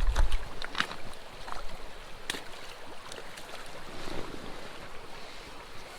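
Small creek running steadily, with scattered short clicks and splashes and a low thump right at the start.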